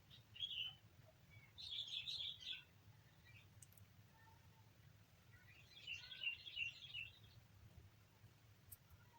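Young kitten making faint, high-pitched chirping squeaks in three short bouts: a brief one near the start, a longer one about two seconds in, and another about six seconds in.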